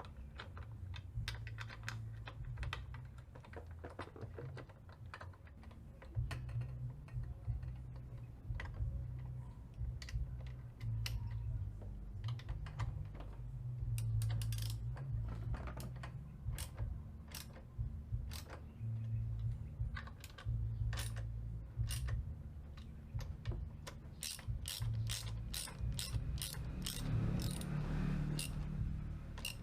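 Hand ratchet wrench clicking as bolts are turned on a motorcycle, in scattered strokes and then a fast, even run of clicks near the end, over a low rumble.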